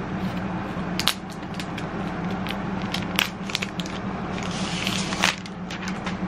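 Thin plastic protective wrap being handled and peeled off a new Amazon Echo Plus speaker, crinkling with scattered sharp crackles and a short rustle a little before the end. A steady low hum runs underneath.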